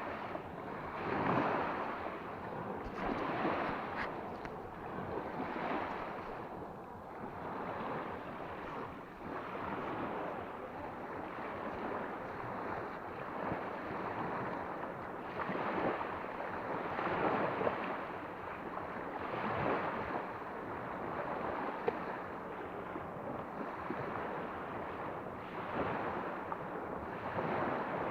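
Sea of Azov waves washing onto the shore, the surf swelling and falling back every couple of seconds.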